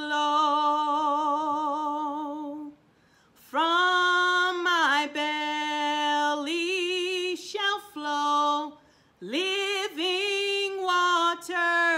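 A solo voice sings a slow worship song unaccompanied, holding long notes with a wavering vibrato. It breaks off briefly twice, about three seconds in and again near nine seconds.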